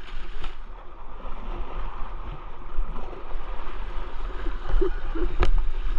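Shallow river water rushing over stones around a kayak, with paddle strokes splashing through it and wind on the microphone. One sharp knock about five and a half seconds in.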